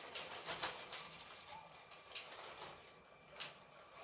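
Motorized Lego 60197 passenger train rolling on plastic track: a few short, irregular clicks and rattles as its wheels and coupled cars pass over the track joints, over a faint steady whine.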